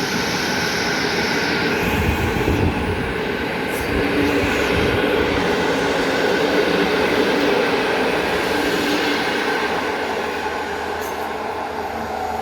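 Passenger train hauled by a PKP EP09 electric locomotive rolling past: a steady, loud rumble and rush of the carriages' wheels on the track, easing off slightly near the end.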